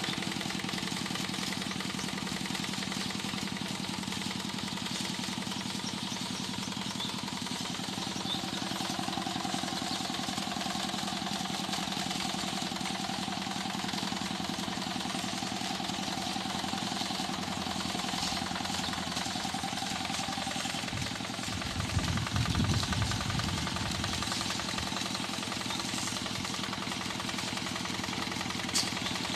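Hand tractor engine running steadily while ploughing a rice paddy. A brief low rumble about three-quarters of the way through stands out from the engine, and there is a short click near the end.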